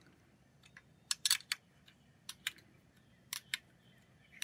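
Hand wrench tightening the anchor bolts on a steel gate hinge: sharp metallic clicks in small groups of two or three, with quiet between.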